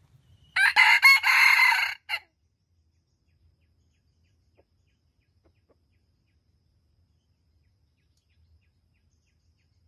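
Red junglefowl rooster crowing once: a short crow of about a second and a half that ends in a brief clipped final note.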